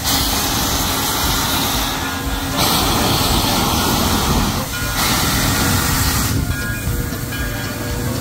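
Frisco 1630, a 2-10-0 Decapod steam locomotive, moving slowly with its cylinder cocks open: loud hissing steam in long surges that shift every couple of seconds, over the low rumble of the running gear.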